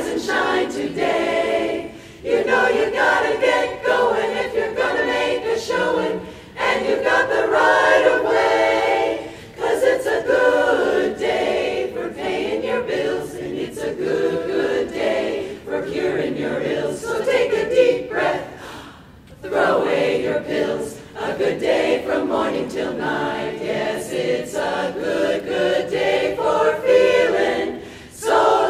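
Women's barbershop chorus singing a cappella, in phrases with short breaks between them.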